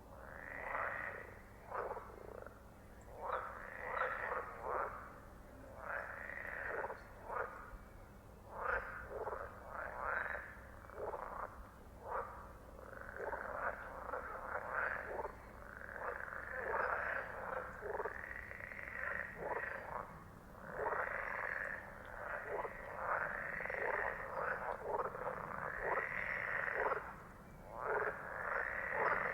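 A chorus of frogs croaking: short calls of under a second each, coming one after another with no break and often overlapping.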